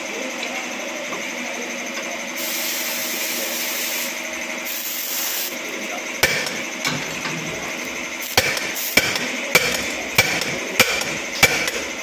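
Hammer blows on metal at a vehicle's propeller shaft and star (universal) joint: about eight sharp strikes from about six seconds in, settling into an even beat of a little under two a second. Before them a steady machine hum runs with two short bursts of hiss.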